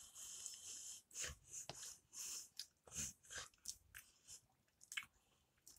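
A person chewing a mouthful of instant noodles: faint, short, irregular chewing sounds.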